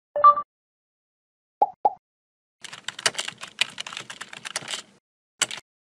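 Computer keyboard typing, a quick run of keystrokes lasting about two seconds, followed by one more click near the end. It opens with a short pitched tone and two quick clicks.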